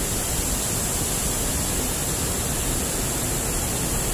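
Steady rushing noise with a flickering low rumble, from wind on the microphone and a shallow river flowing over rocks.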